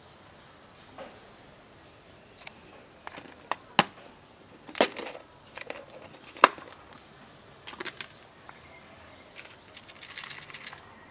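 Clicks and knocks of a clear plastic tub of dry cat food being opened and handled, the loudest two knocks about five and six and a half seconds in. Near the end comes a quick run of small rattles as the tub full of kibble is set down on the asphalt.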